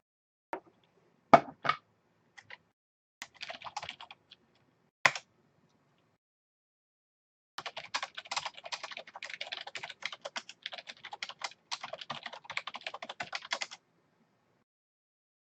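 Typing on a computer keyboard: a few scattered key presses in the first five seconds, then about six seconds of fast, continuous typing that stops shortly before the end.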